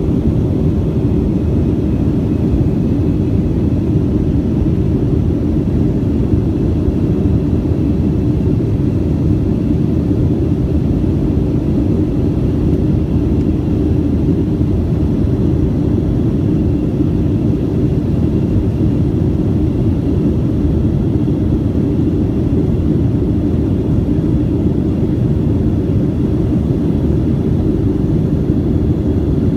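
Airliner in flight heard from the passenger cabin: a steady, even rumble of engines and airflow, with a faint high whine over it.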